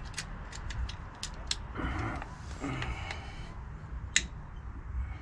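Light metal clicks and ticks from a rear drum brake's shoe hold-down spring, cup and pin being pressed and turned with a hold-down tool against the backing plate. There is a short scraping stretch around the middle and one sharp click about four seconds in.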